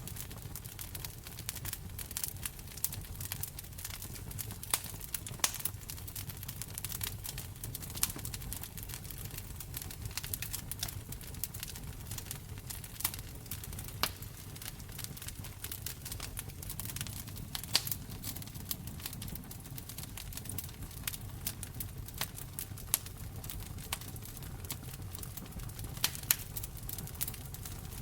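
Wood fire crackling in a fireplace: irregular sharp pops and snaps, a few louder ones scattered throughout, over a steady low rumble of the burning fire.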